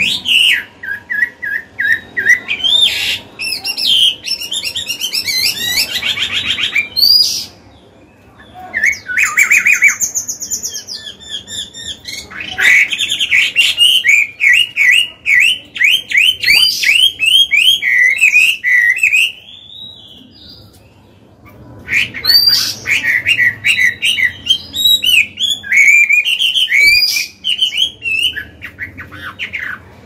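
Chinese hwamei singing a loud, varied song: long runs of fast repeated whistled notes mixed with rising and falling phrases. It breaks off briefly twice.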